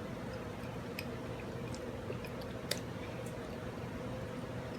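Quiet room tone with a few faint, short clicks, the clearest a little past the middle.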